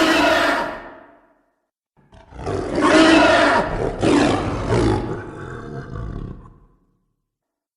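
Two character roar sound effects: a short roar that dies away within about a second, then, after a pause, a longer roar with a deep rumble lasting about five seconds and fading out.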